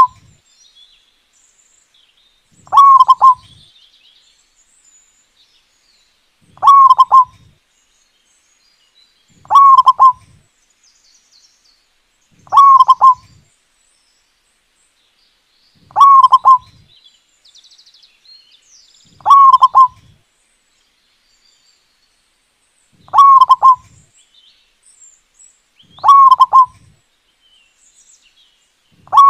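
Zebra dove (perkutut) singing with a big voice: a short phrase of quick coos repeated about every three seconds, nine or ten times.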